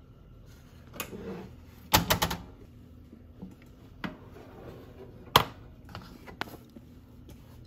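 Cuisinart toaster oven opened and a metal loaf pan pulled out across its wire rack: a series of metal clicks and clanks, the loudest a rattling cluster about two seconds in and a single sharp knock a little after five seconds.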